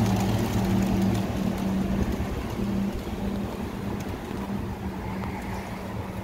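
A flock of pigeons taking off, their wingbeats a flutter that fades over a few seconds as the birds scatter, over a low, steady vehicle-engine hum.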